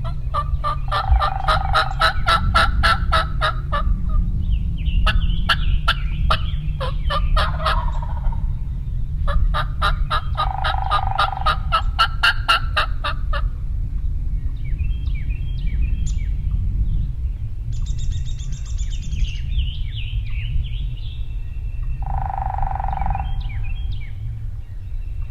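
Wild turkey gobbler gobbling: two long rattling gobbles, about a second in and again about ten seconds in, with a shorter one between them. Small birds chirp later, over a steady low rumble.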